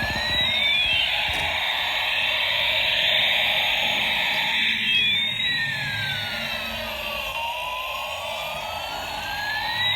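Electronic siren-like sound: tones glide slowly up and down in pitch, crossing each other, over a steady hiss.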